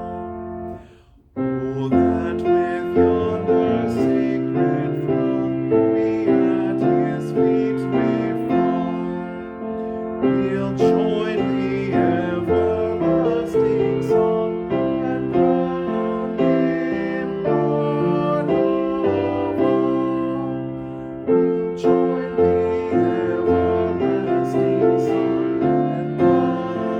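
Piano playing a hymn tune in full chords, with a steady beat of about two notes a second. It breaks off briefly about a second in, then carries on.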